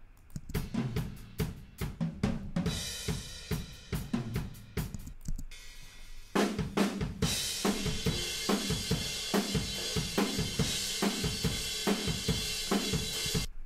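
Raw, unprocessed rock drum kit heard through the far room microphones: kick, snare and toms with hi-hat and cymbals, carrying a lot of room sound. About six seconds in, the playback moves to a busier passage with a constant wash of cymbals over the hits.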